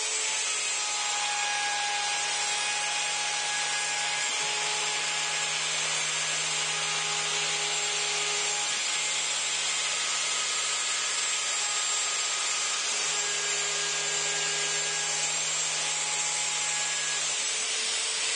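Router on a CNC Mogul machine running steadily as its bit cuts the final, through pass around a cedar fence-board tile, about 0.2 inch deep at 75 inches a minute. A low hum underneath breaks briefly about every four seconds and stops near the end.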